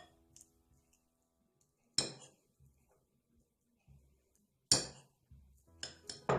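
A fork clinking against a dish while a ripe banana is mashed with it. There are a few separate sharp clinks, the first two about two and a half seconds apart, then three in quick succession near the end.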